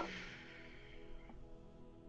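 Quiet ambient background music with sustained, steady tones. It opens with a short hiss that fades over about a second.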